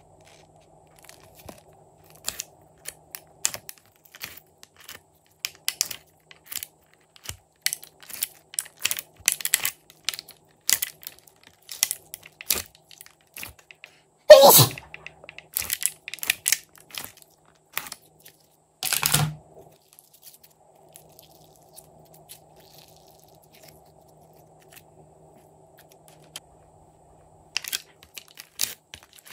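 Glossy slime being worked out of a clear plastic stick-compartment tray: a run of close, sticky clicks and crackles, with one loud squelch about halfway through and another a few seconds later. Then a quiet stretch before the crackling starts again near the end.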